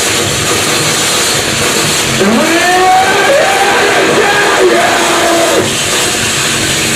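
Harsh noise performance: a loud, dense wall of distorted noise, with a wavering pitched wail bending up and down over it from about two seconds in until near six seconds.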